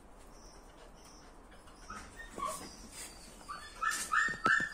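Dog whimpering: a quick run of short, high-pitched whines near the end.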